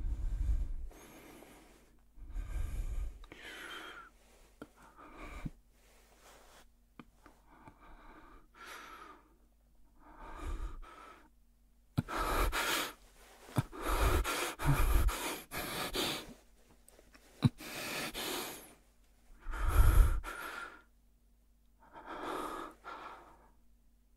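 A man's heavy, ragged breathing and gasps close to the microphone, in uneven bursts with quiet pauses between, the loudest gasp near the end: the panting of someone jolted awake from a bad dream.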